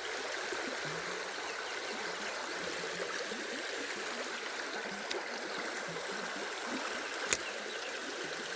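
Small stream running over rocks, a steady rush of water, with a single sharp click about seven seconds in.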